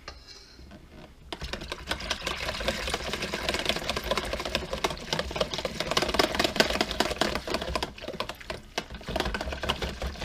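Wire whisk beating sour cream into a sauce in a plastic container: a fast, steady clatter of wire against plastic that starts about a second in.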